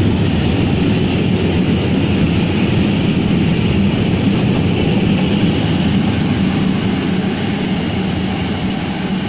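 Freight train of hopper wagons passing at speed: a steady rumble of wheels on rail that eases off near the end as the last wagons pull away.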